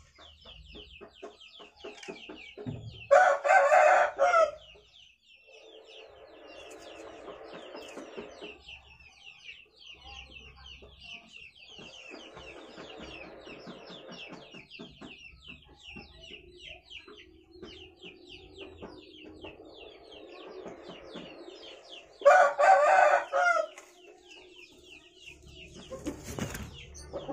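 A rooster crowing twice, once about 3 seconds in and again about 22 seconds in, with quieter animal sounds between and a fast, high chirping underneath.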